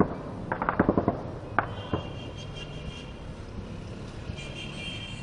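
A rapid burst of automatic gunfire about half a second in, with one more shot just after, over the steady low rumble of a military jet flying overhead.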